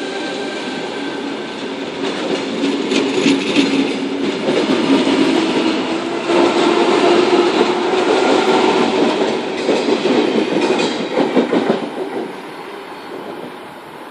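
Sydney Trains double-deck electric train running past close by, its wheels clattering over the rail joints. It grows louder about two seconds in and falls away about twelve seconds in as the last carriages pass.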